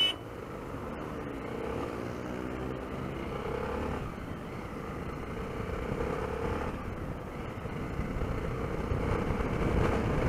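Honda XRE 300's single-cylinder engine running under way, rising in pitch as it accelerates between about one and four seconds in, with road and wind noise growing louder toward the end. A short sharp click at the very start.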